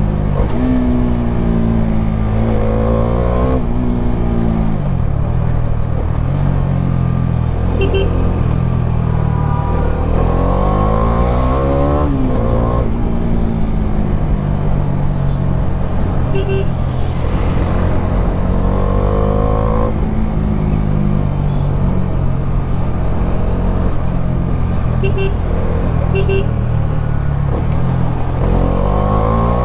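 Bajaj Dominar 400's single-cylinder engine riding under way, its pitch climbing under acceleration and dropping back at each gear change, four times over.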